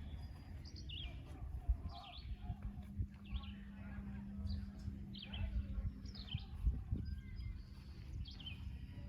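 Small birds chirping again and again, short quick calls, over a low rumble of wind or handling noise. A faint steady hum runs through the middle.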